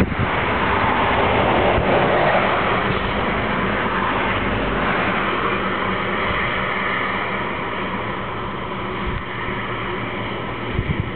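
Four-engine turboprop drone of a C-130 Hercules transport aircraft, a steady rumble with a constant low hum, slowly getting quieter as the aircraft flies away after the drop.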